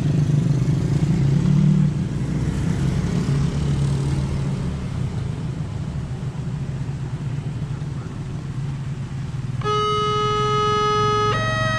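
Road traffic running past a railway level crossing, a low steady rumble of car and motorcycle engines. Near the end the crossing's electronic warning alarm starts, a steady tone that alternates between two pitches about once a second as the signal turns red, warning that a train is approaching.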